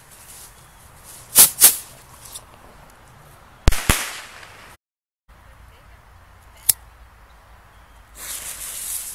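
Small consumer firework rockets bursting overhead: two pairs of sharp bangs about two seconds apart. After a short break comes a single click, then near the end the hiss of the next rocket's lit fuse burning.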